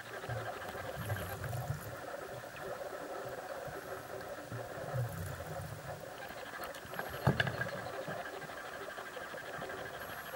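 Muffled underwater sound heard through a camera's waterproof housing under lake ice: a steady hum with a few soft low thuds and one sharp knock about seven seconds in.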